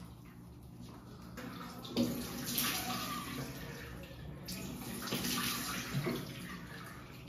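Tap water running into a bathroom sink, starting about two seconds in, with irregular splashing as water is scooped up and rinsed off a soapy face.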